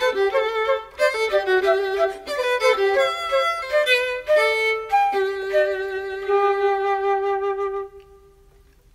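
Flute and violin playing a duet melody, closing on a long held note that stops about eight seconds in.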